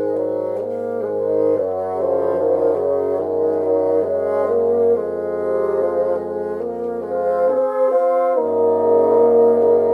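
Four bassoons and a piano playing a slow, lyrical melody over held low chords that change every few seconds. The lowest part drops out briefly about eight seconds in, then comes back.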